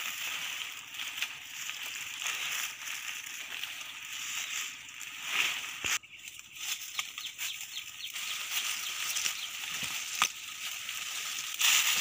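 Dry leaf litter and brittle twigs crunching and rustling under footsteps, with dry leafy branches brushing and crackling as they are pushed aside. The crackle is continuous, with louder bursts about five seconds in and near the end.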